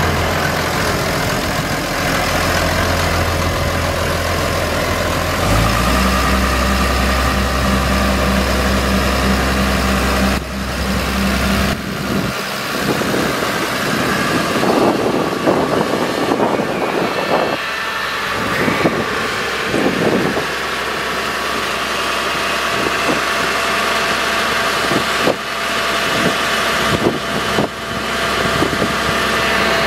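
Case IH Maxxum 125 tractor's diesel engine running at idle, a steady low hum whose note steps up about five seconds in. About twelve seconds in the deep hum drops away and a rougher, uneven engine sound with irregular surges carries on.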